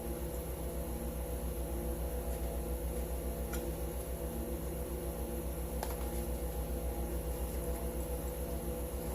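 Steady hum of a small electric motor, pulsing quickly and evenly at a low pitch, with two faint clicks a few seconds apart.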